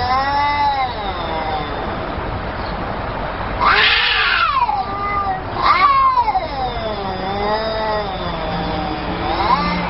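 Two domestic cats in a face-off, yowling at each other: several long, wavering, drawn-out yowls that rise and fall in pitch, the loudest about four seconds in.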